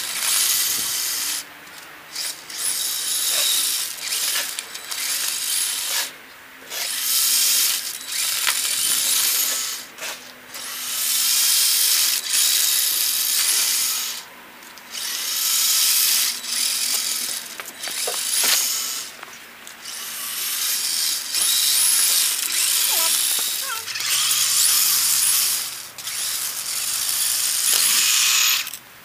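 Radio-controlled truck's electric motor and gearbox whining as it is driven, in repeated stretches of one to four seconds with short pauses between them as the throttle is worked.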